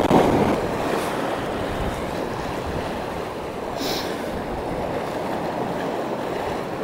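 Sea waves washing and breaking on the shore, with wind buffeting the microphone. The wash is loudest in the first half-second, and a short, sharper hiss comes about four seconds in.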